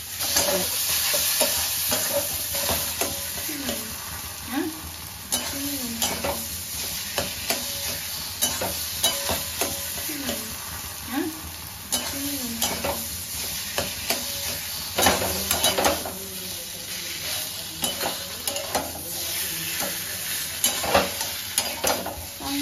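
Flat steel spatula stirring and scraping a thick taro-leaf paste around a stainless steel kadai, metal scraping on metal with frequent clicks and short squeaky scrapes over a steady frying sizzle. The paste is being sautéed in the last stage of cooking.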